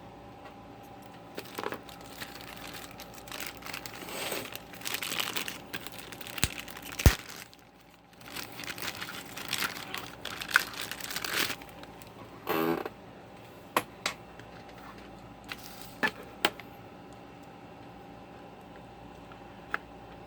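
Packaging being opened and handled: irregular rustling, crinkling and tearing for about ten seconds, with a sharp click about seven seconds in. A short buzzy rasp follows, then a few scattered clicks.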